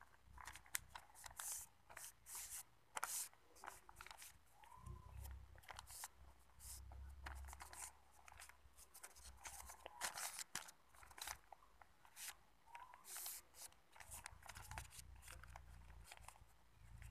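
Paper sheets rustling and crinkling as they are handled and folded by hand, in quick irregular crackles.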